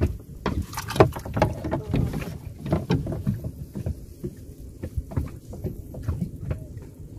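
A small boat being worked through dense reeds and grass: stalks brushing and scraping along the hull, with irregular knocks and rustles over a low rumble.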